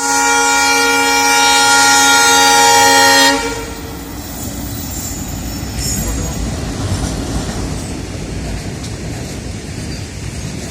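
WDM3A Alco diesel locomotive sounding its horn: one loud, steady, multi-tone blast that cuts off about three seconds in. The low rumble of the locomotive and its loaded freight train follows.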